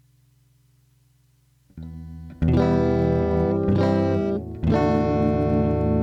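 Electric guitar played through a compressor pedal: a low amp hum, then a soft note about two seconds in, followed by two loud struck chords that ring on at an even, held level.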